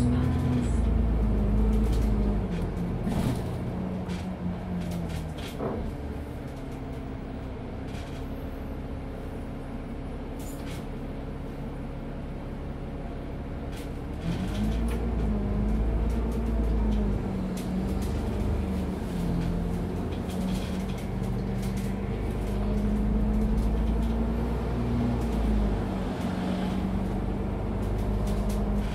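Isuzu Citiport 18 articulated city bus's engine. Its pitch falls away early on, and it runs quietly and steadily for about ten seconds. From about halfway it pulls away, the engine note rising and dropping back twice as the automatic gearbox shifts up.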